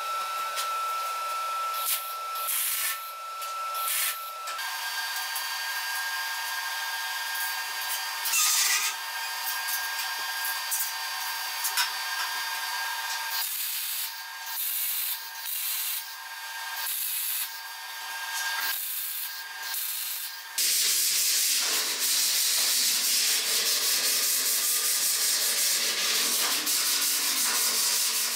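Arc welding on a steel frame: short bursts of crackling, about half a dozen, each a second or so long, come after the middle, then a longer, louder, steady run near the end. Before that there is a faint steady high tone, with light clicks and scraping of metal parts being handled.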